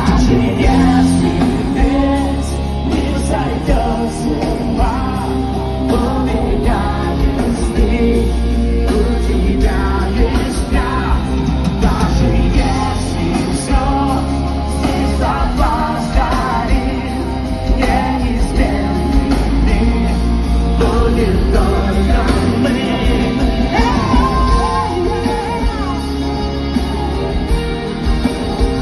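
Loud background music with a sung vocal over a steady beat.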